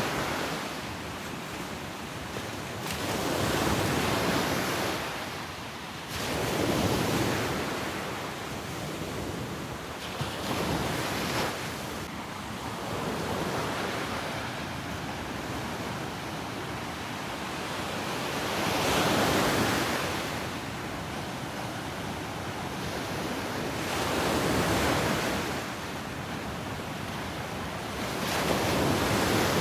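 Ocean surf on a beach: waves breaking and washing in over a steady rush of water, a louder surge every four to six seconds, about six in all.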